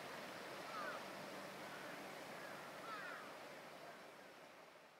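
Harbour ambience: a steady wash of wind and lapping water with a few short bird calls, fading out near the end.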